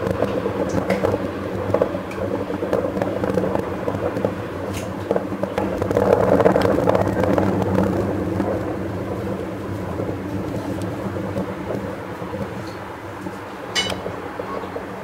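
Distant fireworks finale: a continuous rolling rumble of many shells bursting, with faint crackles. It swells about six seconds in, then dies away as the display ends.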